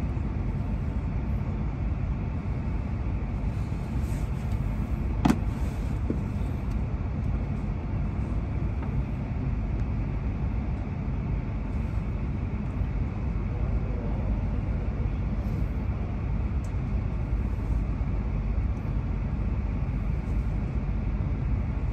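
Running noise of an E6 series Shinkansen train with Hitachi IGBT inverter drive: a steady low rumble of the train in motion, with one sharp knock about five seconds in.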